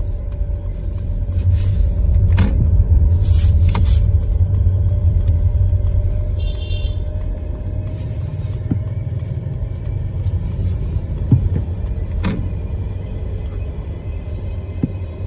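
Mercedes-Benz EQS electric car's synthetic driving sound: a steady hum with one held tone over a deep rumble. A few sharp clicks occur, the loudest about twelve seconds in.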